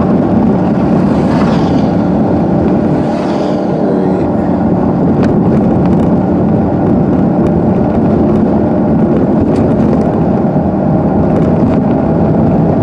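Steady in-cabin driving noise from a car: engine hum and road noise.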